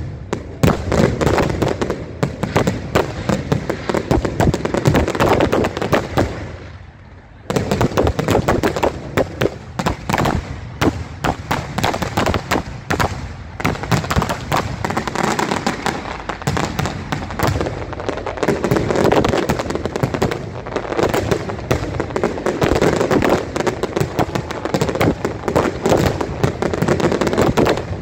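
Aerial fireworks display: a dense, continuous barrage of shell bursts and crackling. There is a brief lull about seven seconds in, then the bursts start again suddenly.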